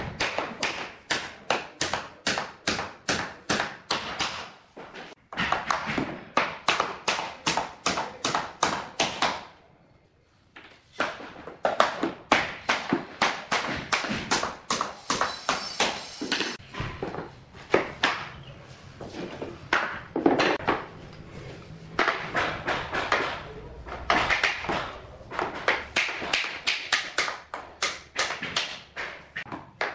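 Claw hammer tapping a bamboo skirting board into place along the wall: quick light knocks about three a second, with one short pause near the middle.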